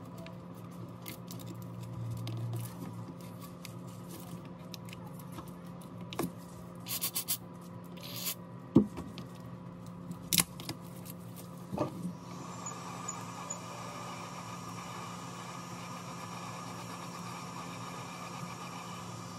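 A thin steel pry blade scraping and clicking against the cracked back glass and adhesive of a Huawei Mate 30 Pro, with a few sharp clicks spaced seconds apart. About twelve seconds in, a hot air gun starts blowing with a steady rushing noise.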